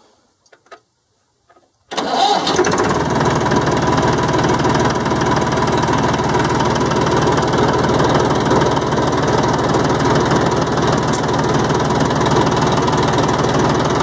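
1995 TAFE 35 tractor's diesel engine started on the key through a newly fitted start switch. A couple of faint key clicks, then about two seconds in it fires straight away and keeps running steadily.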